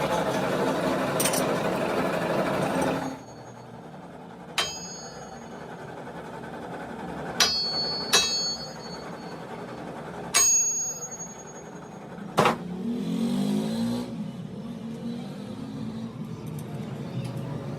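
A workshop machine running loudly stops abruptly about three seconds in. Then come five sharp metallic clinks that ring briefly, metal tools or parts striking, over a low hum.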